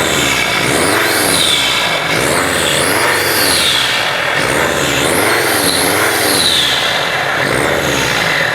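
Mercedes Sprinter engine being revved in repeated blips, with the freshly fitted turbocharger whistling: a high whine that rises and falls with each rev, about once a second.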